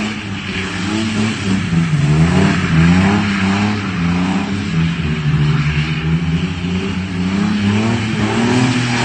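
A car's engine revving hard during street skids on a wet road, its pitch swinging up and down again and again with the throttle, over a steady hiss.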